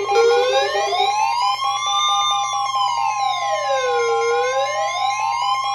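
Electronic emergency alert siren wailing slowly up and down in pitch: it rises over the first two seconds, falls to a low point about four seconds in, and rises again near the end. It is layered over a rapidly pulsing beep and a steady high tone.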